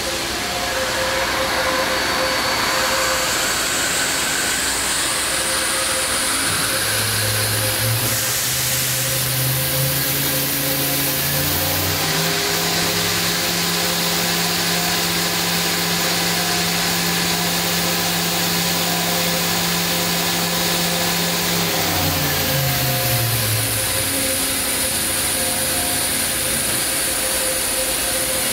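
Fadal VMC4020HT vertical machining center's spindle running, its whine stepping up in pitch as the spindle speed is raised to nearly 10,000 rpm, holding steady, then stepping back down about three quarters of the way through.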